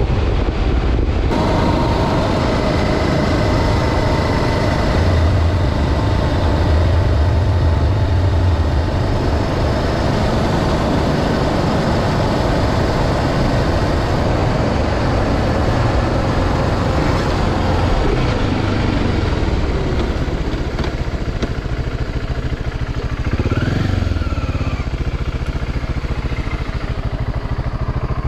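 BMW G650 Xcountry motorcycle's single-cylinder engine running under way over a steady rushing noise. The engine note drops slowly through the middle, and near the end it revs up briefly and falls again.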